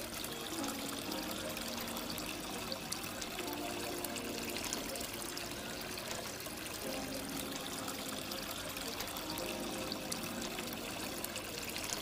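Water from a small pump-fed cement cascade fountain trickling and pouring steadily down its stepped face into the rock-filled basin.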